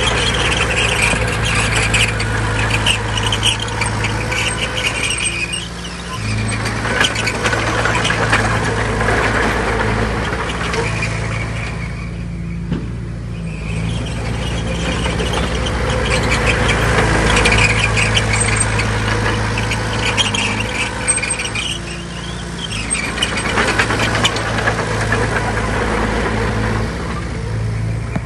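Bulldozer's diesel engine running steadily under load, with metallic clatter and squeals from the machine that swell and fade every few seconds and ease off briefly about twelve seconds in.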